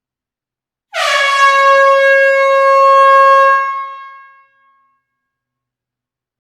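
A single long blast of an air horn, its pitch dipping briefly as it sounds and then holding steady for about three seconds before fading out.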